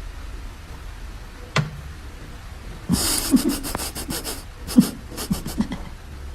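An animal panting in a run of quick noisy puffs with short squeaky notes, starting about three seconds in; a single sharp click comes earlier.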